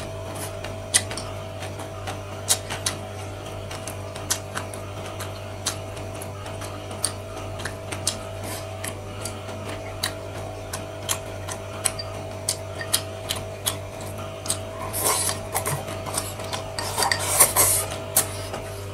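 Close-miked mouth sounds of eating seafood: wet chewing and lip smacks with many sharp clicks, and louder slurps of noodles near the end. A steady low hum runs underneath.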